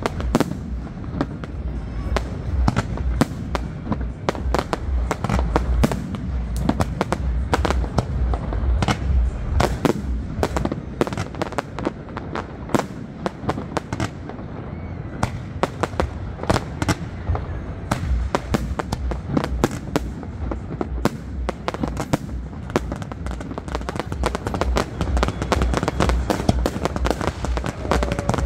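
Fireworks display: a rapid, continuous barrage of shell bursts and crackle, many sharp reports a second over deep booms. It thins slightly about halfway through, then grows denser again near the end.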